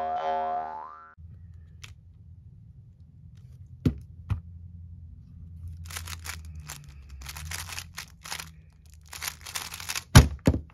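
The tail of an intro jingle, then a stickerless 3x3 speed cube turned fast through a timed solve: a rapid rattling clatter of the layers turning for about four seconds. There are a couple of knocks before the turning starts, and two loud thumps near the end as the solve finishes and the hands come down on the stackmat timer.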